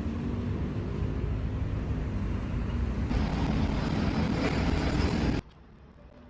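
Steady low rumble of a running vehicle, with a louder hiss joining about three seconds in; it stops abruptly near the end.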